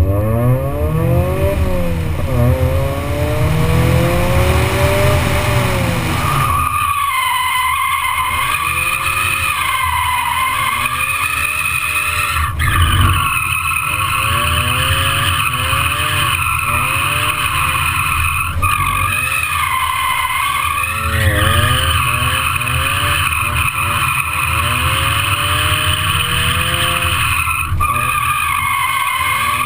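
Mazda MX-5 Miata's four-cylinder engine revving up and down as the car drifts. From about seven seconds in, tyres squeal steadily, wavering as the car slides through turns.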